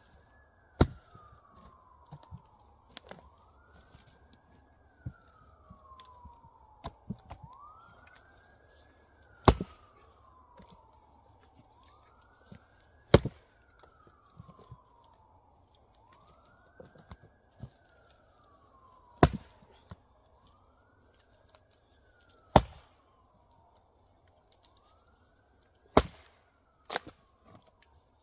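Axe splitting Douglas fir firewood: sharp chopping strikes every few seconds, some louder than others. Behind them a siren wails, rising and falling about every four seconds throughout.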